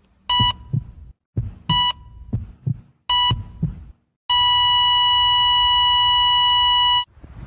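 Heart monitor beeping three times, about a second and a half apart, over low heartbeat thumps, then going into one long unbroken flatline tone that cuts off suddenly: the signal of the heart stopping.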